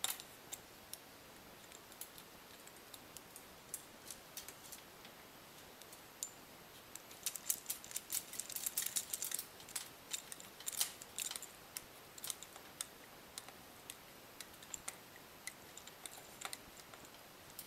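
Hand screwdriver tightening a bolt into a lock nut held by a small wrench, on a quadcopter's motor mount and boom: scattered light clicks and taps of metal parts, sparse at first and thickest in a cluster about halfway through.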